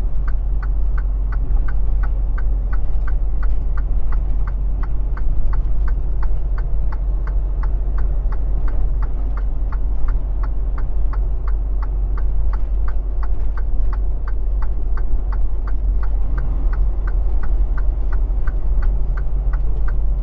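Semi truck's engine and road noise droning steadily, heard inside the cab, with a fast, even ticking of about three ticks a second throughout.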